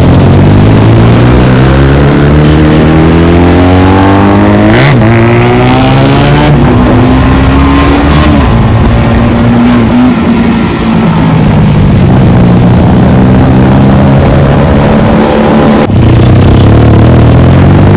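Motorcycle with a loud modified exhaust accelerating through the gears. The engine pitch climbs, drops at each upshift, and climbs again, several times over.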